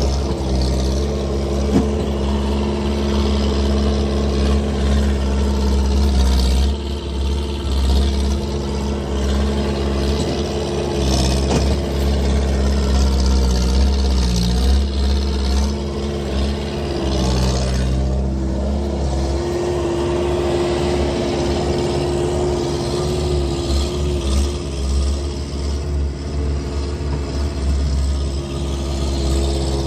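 Skid steer engine running steadily while clearing snow, its pitch dipping and recovering a couple of times as the load changes. One short knock comes near the start. The machine is missing a proper exhaust.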